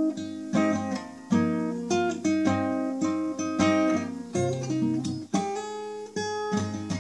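Steel-string acoustic guitar with a capo, played alone with no voice. Chords are struck in an uneven picking pattern, one or two a second, each ringing and fading before the next.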